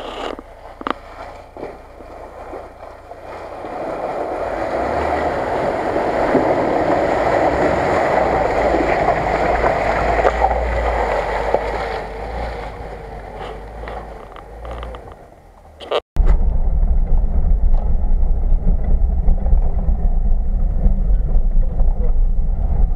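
A Lada Niva fords a shallow river and climbs the bank. The wash of water and the engine build over a few seconds, stay strong for several seconds, then ease off. After a sudden cut comes a steady, loud, low rumble of engine and road noise heard inside a car's cabin on a dirt track.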